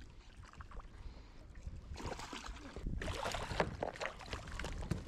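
Water splashing and slapping beside a kayak over a low rumble of wind on the microphone; the splashing gets louder and busier about two seconds in, as a hooked kahawai is worked at the surface.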